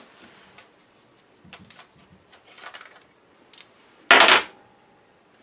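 Small clicks and rattles of a compact camera's battery compartment being opened and its AA batteries taken out, then one short, loud clatter about four seconds in as the batteries are put down on a granite countertop.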